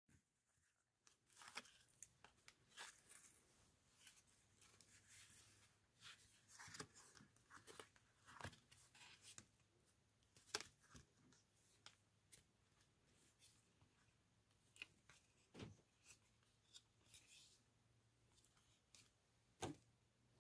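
Faint paper handling: a handmade cardstock maze card being untied and unfolded flap by flap, with scattered soft rustles, slides and light taps of card on the mat.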